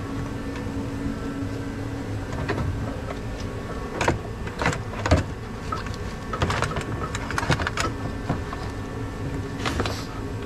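Hard plastic interior trim panel being worked loose from its clips in a car's cargo area. Irregular clicks, knocks and rattles come in clusters about four to five seconds in, around seven seconds and again near the end, over a steady low hum.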